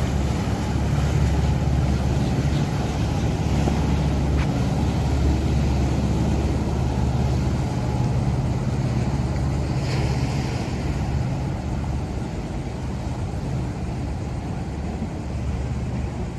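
Dive charter boat's engines running with a steady low drone as it passes through the inlet, easing off a little near the end.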